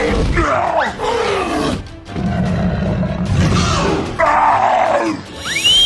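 Cartoon sound effects over background music: a growling roar and a whistle that glides up and back down near the end.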